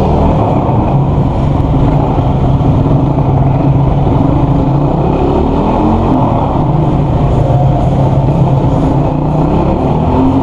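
Toro Rex TR250 250cc motorcycle engine running as the bike is ridden through slow turns, its pitch rising and falling several times with the throttle.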